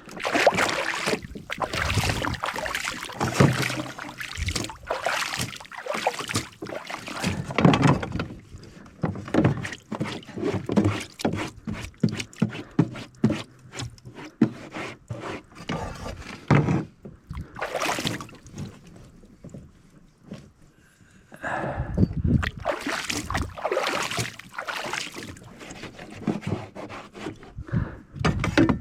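Handling noise aboard a fishing kayak at sea: irregular knocks, rustles and water sloshing against the hull, with a brief lull about two-thirds of the way through.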